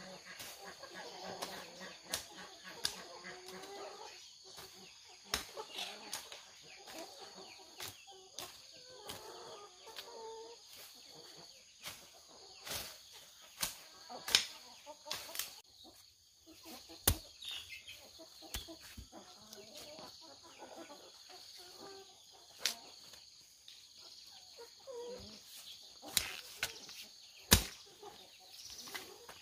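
Chickens clucking, with irregular sharp knocks and taps scattered throughout and a steady high hiss underneath.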